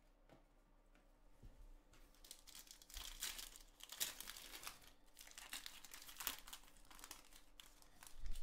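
Foil wrapper of a Donruss football card fat pack being torn open and crinkled by hand, a dense rustle of crackles that peaks a second or so into it. A short knock near the end as the cards are set down.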